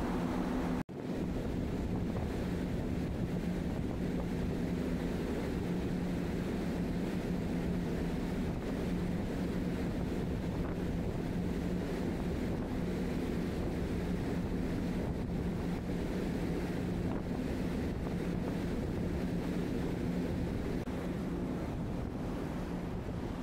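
Wind rushing over and buffeting the microphone on a car ferry's open upper deck at sea, over a steady low hum from the ship. The sound drops out for an instant about a second in.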